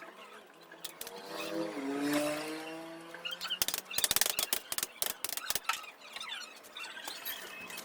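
A pitched drone that slides slowly in pitch, then a quick run of sharp clicks and taps lasting about two seconds in the middle.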